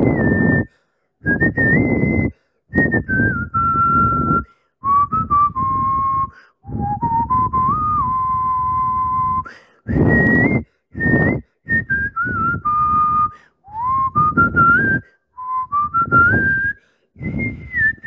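A person whistling a slow melody in short phrases separated by brief silences: one clear tone sliding up and down between held notes, with breathy air noise under each phrase.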